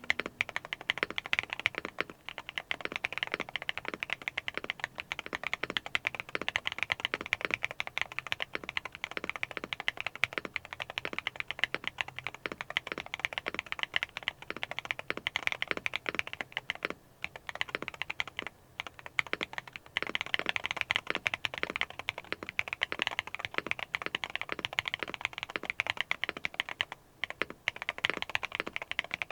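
Continuous typing on a Neo 70 mechanical keyboard fitted with long-pole Akko Botany switches: a dense stream of loud, high-pitched, clacky keystrokes, broken by a few brief pauses.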